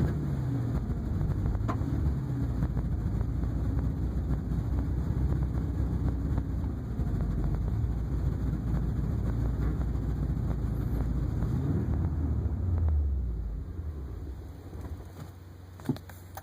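Ford 5.4L V8 engine in a 2002 Super Duty, running under way with its pitch rising and falling as it struggles. About thirteen seconds in it fades and dies, starved by low fuel pressure.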